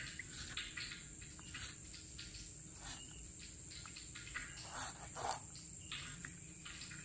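Crickets trilling steadily, with short scraping strokes of a kitchen knife slicing into a whole catfish on a wooden cutting board. The loudest knife stroke comes a little after five seconds in.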